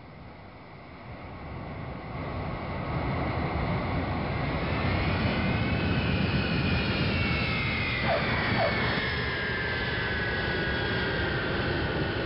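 Airliner jet engines and rushing air heard from inside the cabin during landing: the noise builds over the first few seconds into a loud, steady rush as the plane rolls down the runway. A whine over it climbs and then slowly falls in pitch, with two brief falling chirps about eight seconds in.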